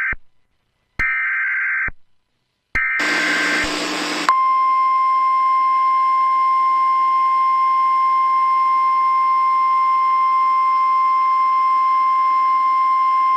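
Emergency Alert System data header: three short, harsh warbling bursts of about a second each, with short gaps between them. The last burst is overlaid with a burst of static hiss. About four seconds in, a steady single-pitch NOAA Weather Radio 1050 Hz warning alarm tone begins and holds without a break.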